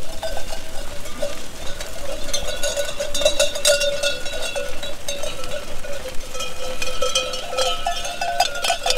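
Many sheep bells ringing together in an irregular jangle as a flock of ewes runs out to pasture.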